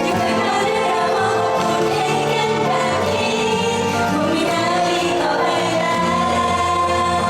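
Pop song with female group vocals singing long, held notes over a backing track.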